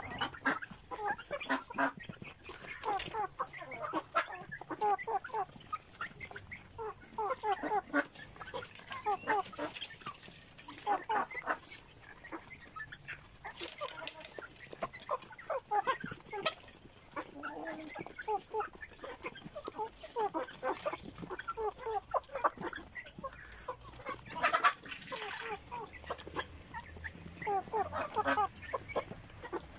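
A flock of young Fayoumi chickens clucking and calling continuously, many short calls overlapping, while the birds feed on grain.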